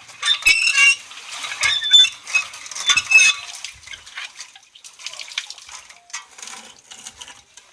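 Water splashing with metal clatter in three bursts over the first few seconds, then scattered light clicks and knocks. This fits a load of water and silt being hauled up and emptied during well cleaning.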